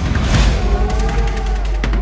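Background music: several held, slowly bending melody tones over a steady bass, with the drums dropping back.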